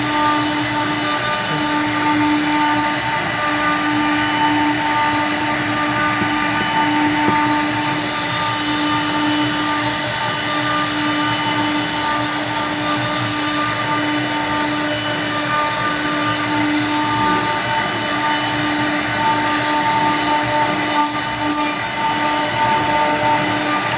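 Electric woodworking machine motor running steadily with a whine, with faint high ticks about once a second.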